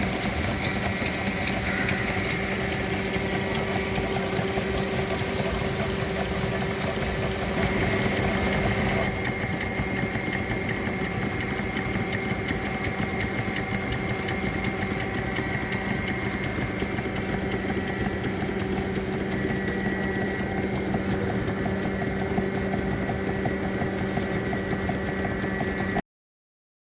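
Working model steam engines running: a fast, steady mechanical clatter over a constant hum, cutting off suddenly near the end.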